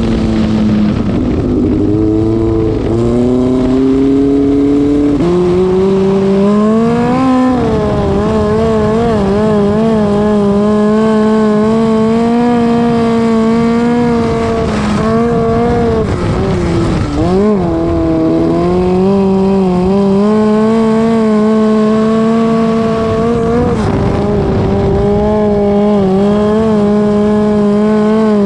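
Midget race car engine at racing speed, heard close from the car itself. Its pitch climbs over the first five seconds, dips sharply and recovers about seven seconds in and again about seventeen seconds in, and otherwise holds high and steady with small wavers.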